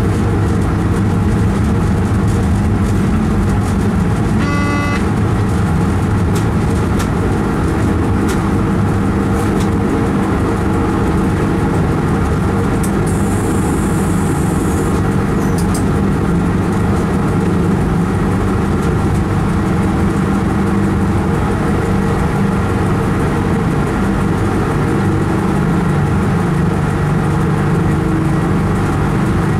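Steady, loud drone of a train running through a tunnel, heard from the driver's cab: rail and running-gear noise with a constant low hum from the traction equipment. A short beeping tone sounds about five seconds in, and a brief high hiss comes about thirteen seconds in.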